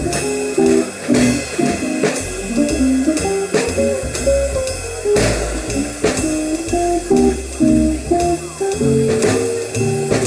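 Small jazz trio playing a blues: guitar running a single-note melodic line over walking bass, with the drummer keeping time on the ride cymbal and snare with sticks.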